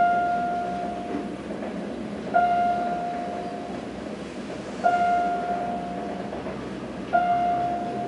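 An elevator chime sounds once for each floor passed as the car descends: a single mid-pitched ring that fades over about a second, four times, about every two and a half seconds. A steady background hum runs under it.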